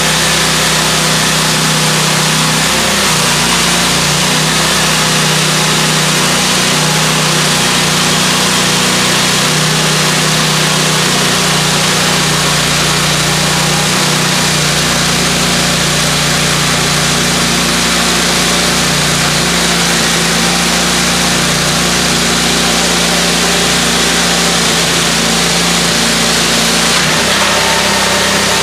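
Chain saw unit of a gas-powered yard saw, driven by a 20 hp Honda engine, running steadily while the chain bar cuts down through a stacked unit of lumber. The engine note shifts slightly near the end.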